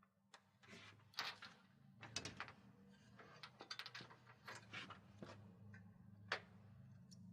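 Near silence: faint scattered clicks and light knocks over a low steady hum.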